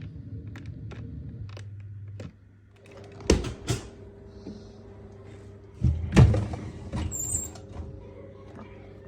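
Dishwasher racks and door being handled: a low hum stops about two seconds in, then come clunks and knocks, two close together and later a louder cluster of bangs, as parts slide and shut.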